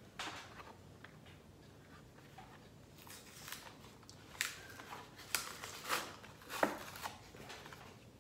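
Plastic blister packaging of a die-cast toy car being handled and pulled open: a scatter of sharp crackles and clicks, most of them in the second half.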